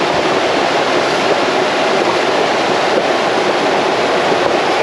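Scalding hot-spring water bubbling up from the ground and splashing into a small rock pool: a steady, loud rush of water.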